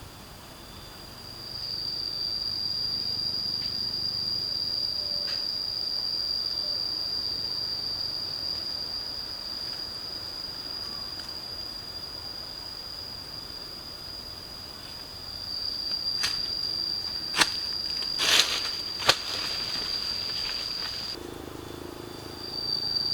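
Steady high-pitched drone of forest insects, one held tone. Near the end there are a few sharp clicks or knocks.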